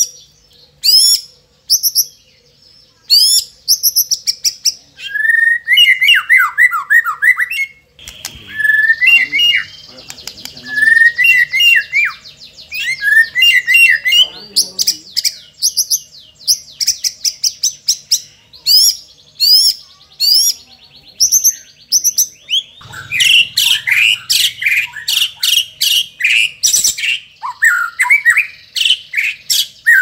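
White-rumped shama singing a loud, varied song of sharp whistles, rapid trills and sweeping notes, in short phrases with brief pauses early on and a denser run of notes later.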